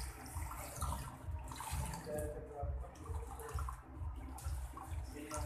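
Water running from a salon wash basin's hand-held sprayer onto hair as hands rinse and squeeze foam out of it, splashing into the basin.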